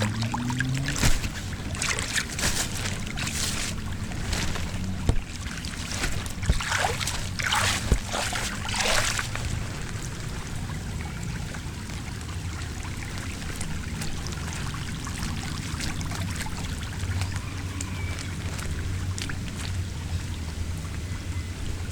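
Floodwater draining and trickling over a low steady rumble, with a run of splashes and sloshing in the first half.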